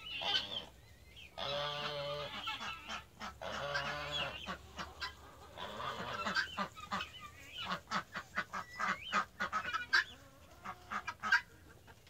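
Domestic geese honking in a poultry coop: three long, loud honks in the first half, then a busy run of shorter, quicker calls from the flock.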